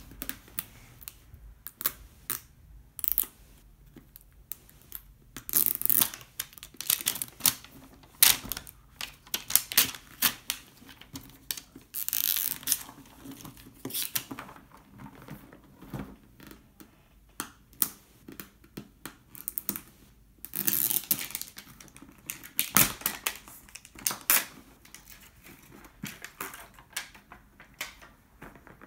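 Packaging being handled and torn: a paper seal strip peeled off a hard plastic toy shell, with crackling, short rips and sharp clicks and taps of the plastic coming in irregular bursts, and a few longer tearing stretches.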